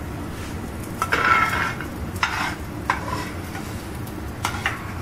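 Spatula scraping and knocking against a frying pan and a steel pot in a few short clattering bursts, the loudest about a second in with a brief ring of metal, as roasted cashews and peanuts are scraped out of the pan.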